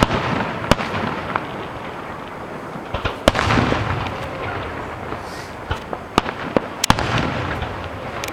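Aerial fireworks shells bursting: a string of sharp bangs at uneven intervals, loudest a little over three seconds in, with a quick cluster near the end, each followed by a fading rumble.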